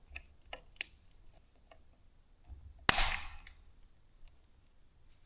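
Faint clicks of parts being handled, then one loud sharp crack about three seconds in: the plastic display mount of a Kukirin G2 Master e-scooter breaking as the display is screwed on.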